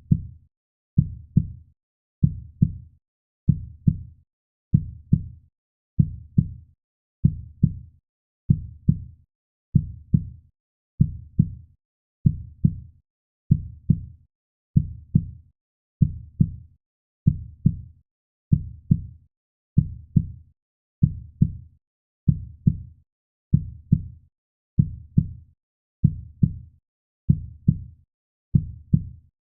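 Heartbeat sound: a steady, even lub-dub of low double thumps, a little over one beat a second, repeating without change.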